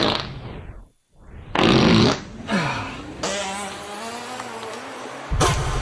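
Recorded human farts played back through an Instruo Lúbadh looper in a modular synth. A rasp fades out to near silence about a second in, then comes a loud burst, a long, wavering pitched fart, and another loud low one starting near the end.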